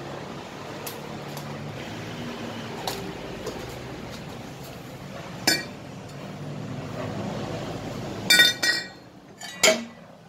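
Metal pipe clinking against a steel sheet: one ringing clink about five seconds in, then a quick cluster of clinks and one more near the end, over a steady low traffic hum.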